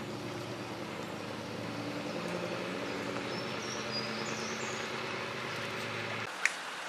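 A vehicle engine running steadily at idle, which cuts off abruptly about six seconds in, with a few faint bird chirps midway and one sharp click just after the engine stops.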